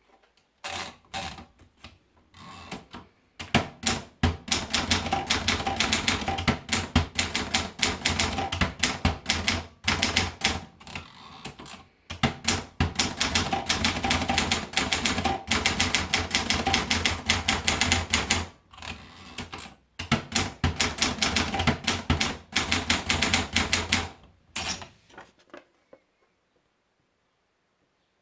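Triumph Durabel manual typewriter being typed on: fast runs of sharp key strikes in three long stretches with short pauses between, stopping about two seconds before the end.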